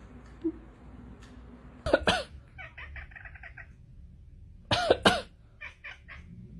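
A cat's short calls, each rising and falling in pitch: one about two seconds in, followed by a quick run of rapid pulses, and two more close together about five seconds in.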